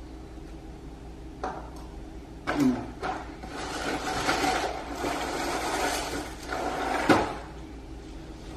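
Dry dog-food kibble poured from a cereal box into a bowl, a rattling rustle lasting about four seconds, then a sharp knock as the box is set down on the stone counter. A few lighter knocks of handling come before the pour.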